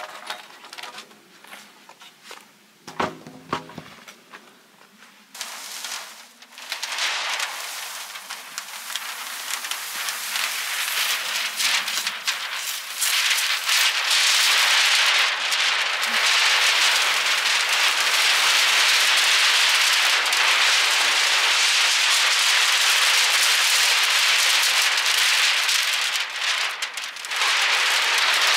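Tyvek house wrap crackling and rustling as a large sheet is unrolled and pulled up against a wall. It starts as a few scattered clicks and rustles, then becomes a dense, loud crinkling that builds and runs on, dipping briefly near the end.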